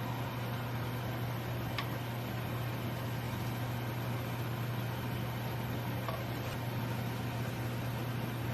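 Steady low machine hum with a background hiss, like a running appliance or fan motor, with two faint light clicks.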